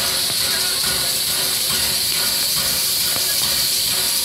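Norfolk & Western 611, a streamlined Class J 4-8-4 steam locomotive, moving slowly with a steady hiss of steam venting from around its cylinders.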